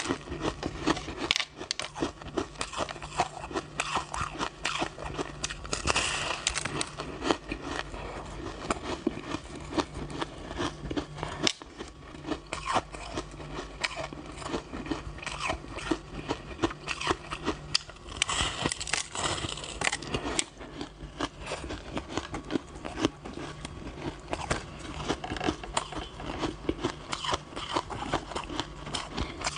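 Close-up biting and chewing of a chunk of packed crushed ice: a dense run of crisp crunches and crackles, with a brief louder stretch about two-thirds of the way through.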